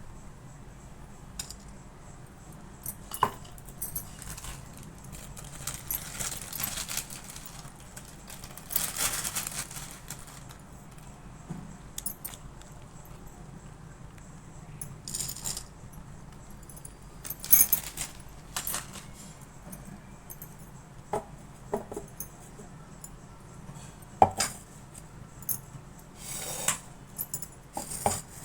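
Utensils and small objects being handled and set down, with scattered clinks and knocks and a few short hissing noises.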